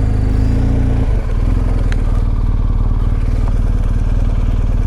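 BMW R 1250 GS Adventure's boxer-twin engine running steadily while riding, with a brief dip in loudness about a second in.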